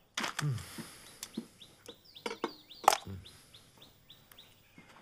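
Hens clucking, with small birds giving a quick run of high chirps through the middle, and one sharp click about three seconds in.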